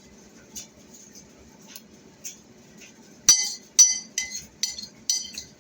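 A metal utensil clinking against a ceramic plate: light ticks at first, then about five sharper ringing clinks, roughly two a second, in the second half.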